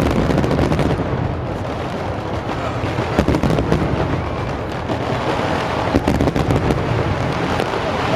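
Fireworks going off in quick succession: a dense stream of sharp bangs and crackles over a continuous rumble, with a few louder reports standing out.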